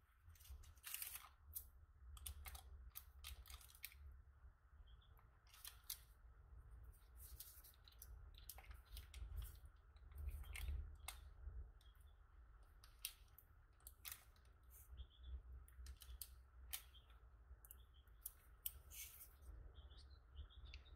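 Faint, irregular scrapes and crinkles of a spatula and paper as ointment is scraped off weighing paper and worked on a paper ointment pad, over a low steady hum.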